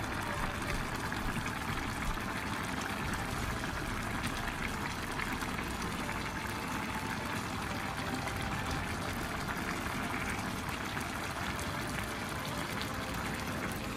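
Rice boiling in mutton stock for yakhni pulao in an open pot: a steady bubbling and crackling of liquid at a rolling boil.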